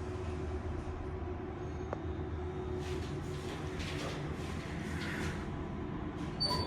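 Passenger lift running, a steady low machinery hum with a constant drone, and a short high beep just before the end.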